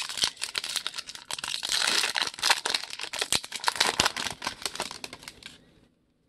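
Foil wrapper of a 2015 Bowman's Best trading card pack crinkling as it is torn and peeled open by hand. The crinkling is busiest in the middle and stops suddenly shortly before the end.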